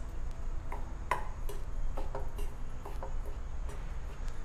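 Metal spoon stirring damp rice flour in a stainless steel bowl, tapping against the bowl in light, irregular clinks about two or three a second.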